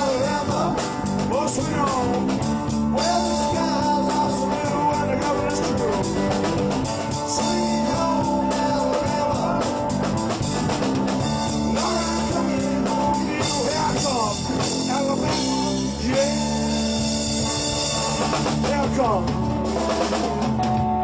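Live rock band playing electric guitar, bass and drum kit with a steady beat, in the closing instrumental stretch of the song.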